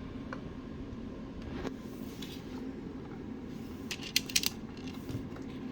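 Small sharp metallic clicks and clinks, a quick cluster of them about four seconds in, from a screw and screwdriver fastening the antenna base inside the radio. A steady low hum runs underneath.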